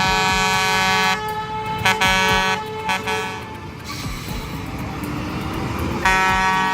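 Vehicle air horn blowing: a long steady blast, then several short toots about two to three seconds in, and a long blast again near the end, with vehicle engine noise between.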